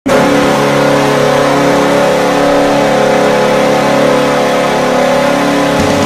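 Nashville Predators' arena goal horn sounding one long, steady blast of several tones together, cutting off just before the end.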